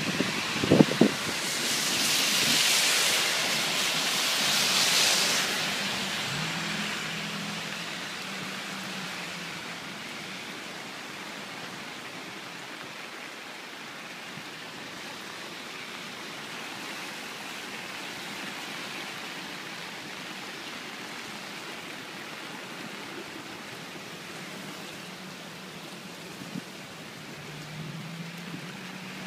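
Steady rushing of a flooded creek's fast, high water, with a louder hiss swelling about two seconds in and easing off by six.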